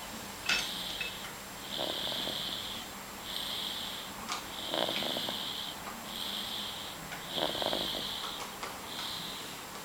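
Fast, hissy snoring, about one breath every one and a half seconds, with a few short faint clicks between breaths.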